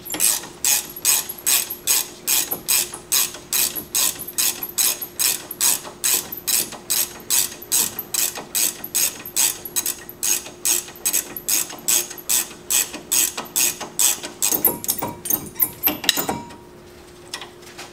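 Ratcheting box-end wrench clicking steadily, about three strokes a second, as a brake caliper bracket bolt is run out; the clicking stops about 16 seconds in.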